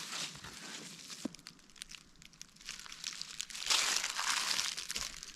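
Crinkling and rustling of dry garden vegetation, with scattered small crackles and a louder rustle about four seconds in.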